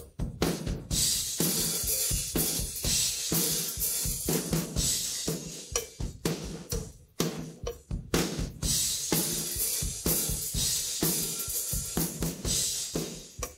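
Isolated rock drum-kit track from the cymbal, tom and room-ambience microphones: fast, driving drumming with crash and hi-hat cymbals ringing over tom, snare and kick hits heard through the room mics.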